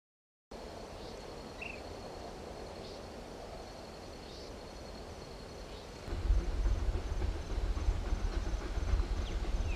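Outdoor ambience with a steady high insect tone and a few short bird chirps. About six seconds in, a loud, uneven low rumble starts: the approaching Baldwin 2-8-0 Consolidation steam locomotive #68 on narrow-gauge track.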